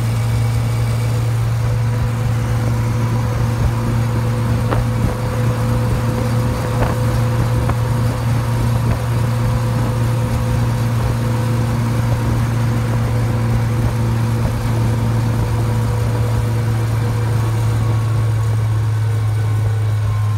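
1971 military Jeep cruising at highway speed near 65 mph, heard from inside the cab: a steady low drone of engine and road noise.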